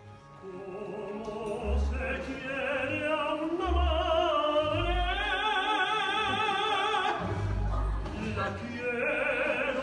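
Live operatic singing with a wide vibrato, the voice rising to long held high notes in the middle, over instrumental accompaniment.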